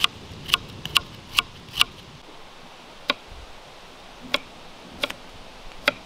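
Chef's knife chopping vegetables on a wooden cutting board: sharp single knocks of the blade on the board, about two a second at first, then slower and more spread out.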